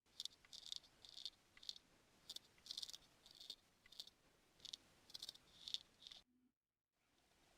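Short, crisp scratching strokes of a barber's ear-grooming tool working inside the ear, about one or two a second. The strokes stop briefly near the end and then start again.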